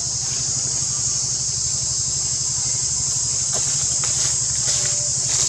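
Insects shrilling steadily in a high, unbroken drone, over a low pulsing hum, with a few faint rustles and clicks in the second half.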